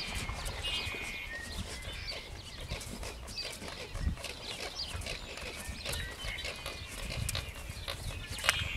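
Hoofbeats of a large, tall horse moving around a sand round pen, dull thuds in deep sand footing.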